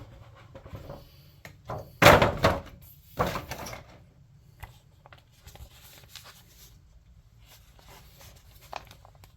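Handling noise: two loud knocks or rustles about two and three seconds in, followed by scattered faint clicks and taps.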